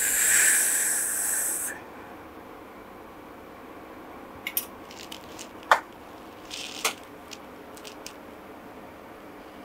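A loud hiss lasting a little under two seconds, then a few light clicks and knocks as a nonstick tawa is handled on a gas stove.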